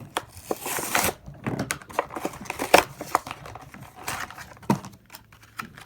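Packaging being crinkled and torn open, with irregular rustles and scattered sharp clicks and knocks.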